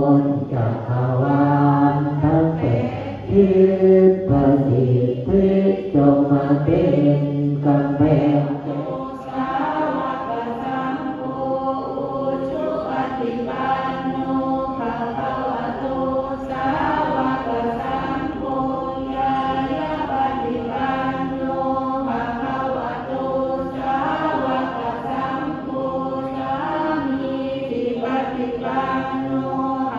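A group chanting Buddhist Pali verses in unison, in a steady syllable-by-syllable recitation. About nine seconds in the lowest voices drop out, and the higher voices carry the chant on.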